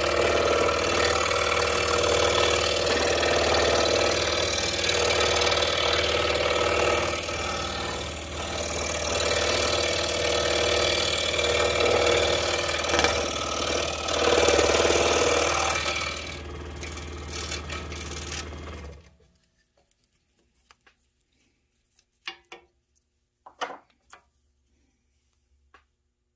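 Scroll saw running with its blade cutting through quarter-inch wood stock, a steady buzzing hum that shuts off about three-quarters of the way through. A few faint light knocks of the cut-out wooden letters being handled follow.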